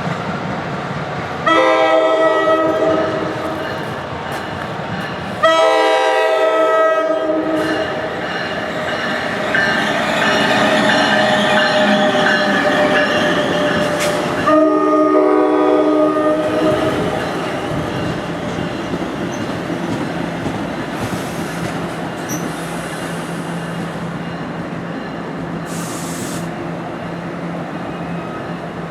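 A New Jersey Transit train's multi-chime air horn sounding three blasts, about 1.5 s, 5.5 s and 14.5 s in, the last the longest, over the steady rolling noise of the passing train.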